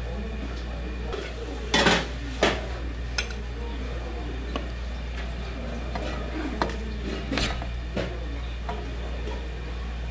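Dishes and metal utensils clinking and clattering in a string of separate knocks, loudest about two seconds in, over a steady low hum.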